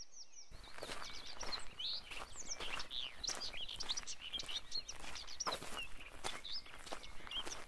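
Small birds chirping busily, with footsteps of someone walking on a paved lane underneath.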